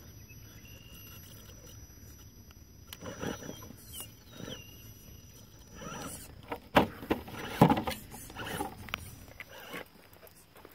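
Axial AX10 Deadbolt RC rock crawler driving in short bursts, its electric motor and metal-geared transmission whirring as it climbs, with tires and chassis scraping and knocking on rock; the loudest knocks come about three quarters of the way in.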